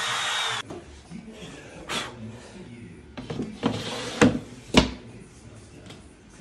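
A handheld power tool runs with a steady whine and cuts off abruptly about half a second in. Then come a few sharp wooden knocks, the loudest two near the middle, as an MDF panel is handled and set against an MDF cabinet carcass.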